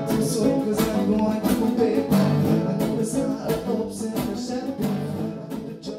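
Background music with guitar and a steady beat, fading out near the end.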